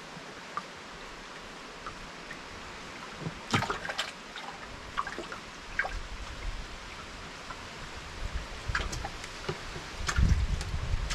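River water trickling and lapping around a small boat, with scattered small clicks and taps from fishing tackle being handled. A sharper knock comes about three and a half seconds in, and a low rumble builds in the second half, loudest near the end.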